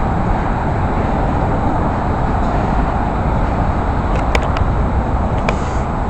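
Steady motor traffic on the bridge roadway: cars and taxis driving past in a continuous rumble, with a few short sharp clicks about four and five and a half seconds in.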